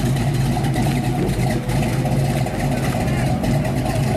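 Engine of a classic Ford Torino fastback muscle car running steadily at low revs as the car rolls slowly past.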